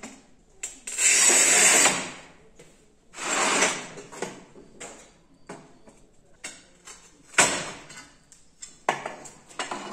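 Carbide wheel of a homemade tile scorer scratching along a porcelain tile in one quick stroke, then a second scraping sweep. About seven seconds in, a sharp crack as the scored skirting strip is snapped off with hand pliers, followed by a few light knocks of tile and tools.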